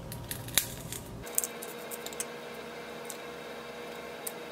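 Scattered small clicks and taps of eyeshadow palettes and pans being handled and sorted, over a faint steady hum that sets in about a second in.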